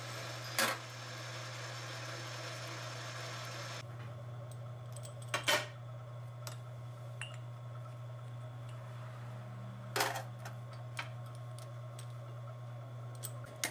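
Metal lathe running, turning a rusty steel bar, with a sharp metal clank under a second in. The lathe's running noise stops at about four seconds, leaving a low steady hum, and a few more sharp metal clanks follow as the bar is handled and clamped in the three-jaw chuck with the chuck key.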